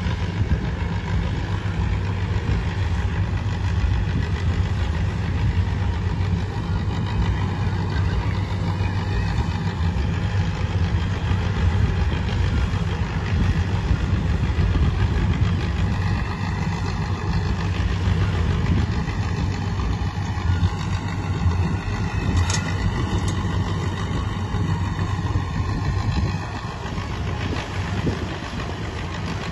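HMT 5911 tractor fitted with a 75 hp engine, running steadily under load as it drives a straw reaper harvesting wheat straw: a constant low engine hum over the rush of the machine. It gets a little quieter over the last few seconds.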